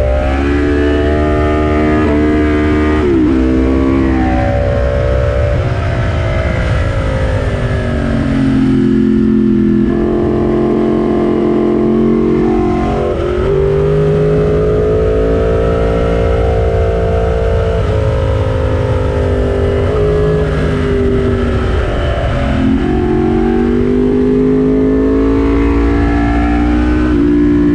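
Yamaha motorcycle engine running hard at track speed. Its pitch climbs under acceleration and drops sharply several times before climbing again, over a steady low wind rumble on the bike-mounted camera's microphone.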